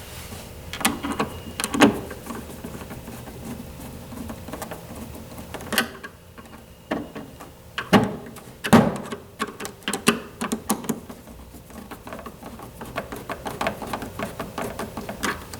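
Screws being driven by hand with a Phillips screwdriver to fasten a plastic shroud: irregular clicks and plastic knocks, then a quick run of small clicks near the end.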